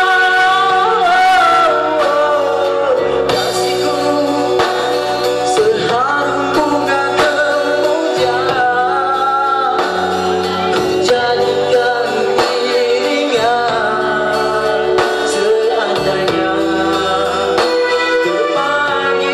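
A man singing a Malay pop ballad live through a large PA sound system, with instrumental accompaniment; the voice holds long notes and slides between them.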